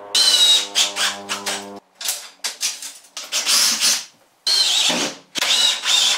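Cordless drill-driver driving screws into wood in about five short runs with brief pauses between them, its motor whine wavering as each screw bites, fastening a mahogany support block to a bulkhead.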